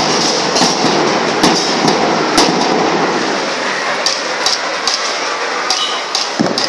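School marching band's drums playing: a continuous rattle of snare drums with heavier strokes recurring roughly once a second.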